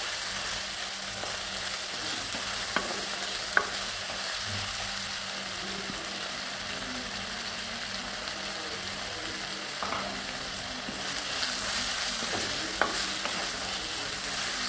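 Chopped onions, tomatoes, mint and coriander sizzling in oil in a clay kadai while a wooden spatula stirs them, scraping and knocking lightly on the pot a few times. The sizzle grows a little louder about two-thirds of the way through.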